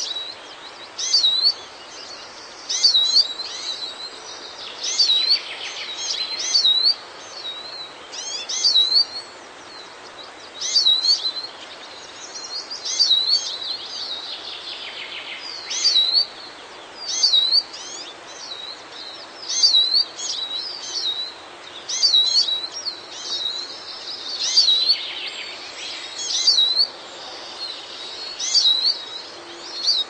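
Eurasian siskin calling: clear whistled notes that dip and then rise, repeated about once a second, with a few short spells of scratchy twittering between them.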